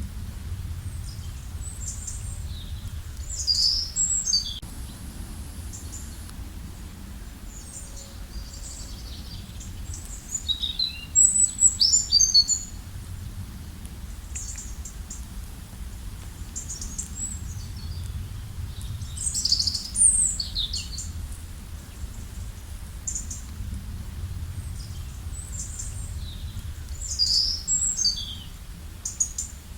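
Songbird singing short phrases of high, quickly falling notes, one phrase about every eight seconds, with scattered faint chirps between, over a steady low rumble.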